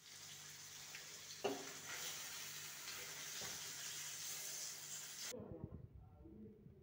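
Masala-coated fish frying in oil in a pan, with a steady sizzle and a single clink about a second and a half in. The sizzle cuts off suddenly about five seconds in.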